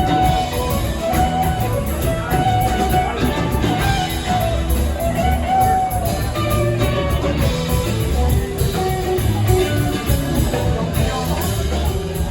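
Live rock band playing an instrumental jam, with a lead guitar line weaving over bass and drums.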